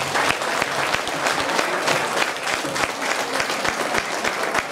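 An audience applauding: steady clapping of many hands.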